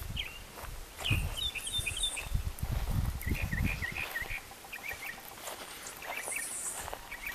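Birds chirping in short, repeated calls, with low rumbling noise on the microphone through the first few seconds.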